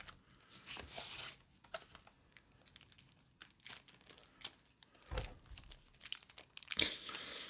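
Plastic packaging wrap crinkling and tearing in short, scattered snatches as it is pulled off a boxed action figure.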